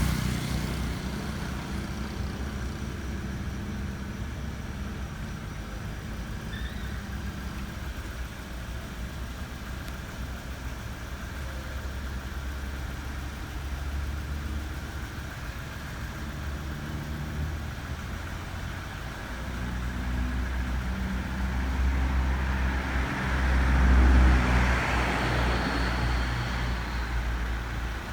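A motor vehicle's engine running steadily, growing louder from about two-thirds of the way through and loudest around 24 seconds in before easing off.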